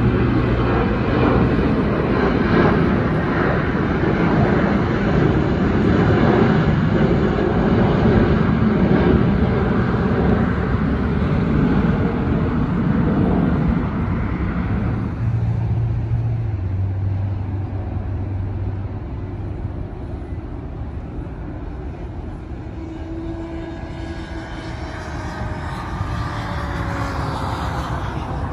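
Jet airliner engines loud as the plane climbs out overhead after takeoff. About halfway through the sound drops abruptly to a fainter, more distant jet noise, with a few sliding tones near the end.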